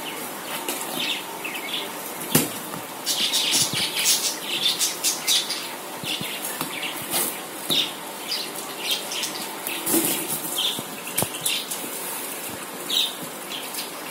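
Scissors cutting packing tape and plastic wrap on a cardboard box, with crinkling and rustling in irregular bursts and a few sharp snips and clicks.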